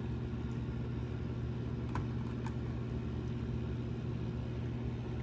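A motor running steadily with a low hum. Two light clicks come about two seconds in as a gauge needle is pressed back onto its shaft on the instrument cluster.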